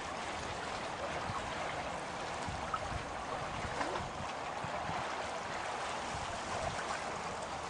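Water rushing and lapping along the hull of a small sailboat under way: a steady hiss with a few small splashes.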